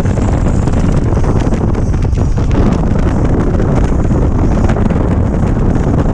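Steady wind rushing over the microphone of a touring motorcycle at road speed, with the motorcycle's running and road noise underneath.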